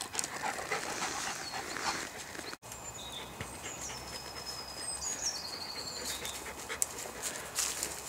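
A yellow Labrador panting as it carries a stick. After an abrupt cut, footsteps crunch on leaf litter while small birds sing high, thin whistled phrases.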